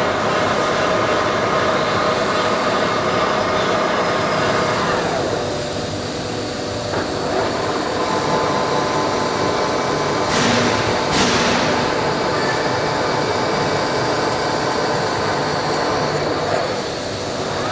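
Metal lathe running and cutting an M56 stud, a steady machining noise with several held tones. The higher sounds drop off about five seconds in, and two short, brighter noises come around ten and eleven seconds in.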